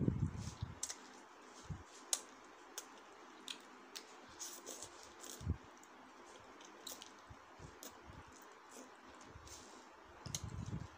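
Close-up eating of stir-fried instant noodles: wet, sticky chewing clicks scattered throughout, with louder slurps at the start and near the end.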